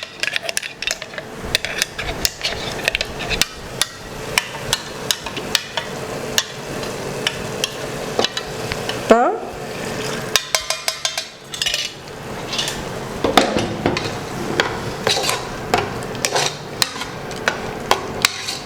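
Metal spoon stirring and knocking against a cooking pot of tomato masala, in many irregular clinks over a low sizzle, with a quick run of rapid clinks about ten seconds in.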